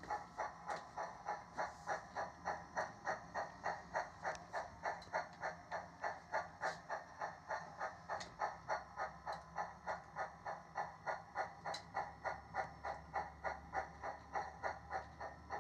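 On3 scale model of a D&RGW K-27 steam locomotive running with a light train, giving a steady, even chuffing at about three beats a second, with a few faint clicks.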